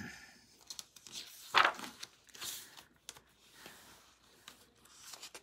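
Rustling and scraping of a picture book's paper pages being handled and turned, with a louder swish about one and a half seconds in.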